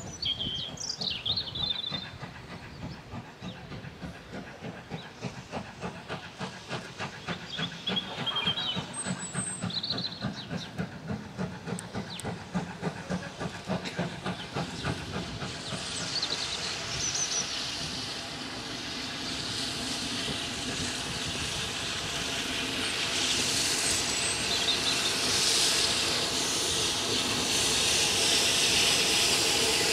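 BR Standard Class 7 'Britannia' steam locomotive approaching with a train: a regular beat of exhaust chuffs, then a growing hiss of steam and running noise as it draws near, getting louder toward the end. A bird chirps near the start and again about eight seconds in.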